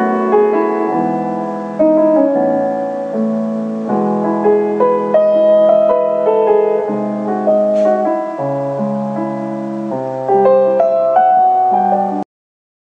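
Background piano music, a melody over held chords; it cuts off suddenly near the end.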